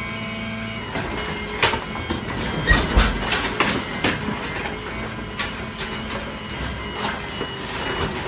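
Crushr truck-mounted dumpster grinder working its toothed drum head down into a roll-off dumpster: a steady machinery hum with irregular sharp cracks and snaps of debris being crushed, the heaviest crack and thump about three seconds in.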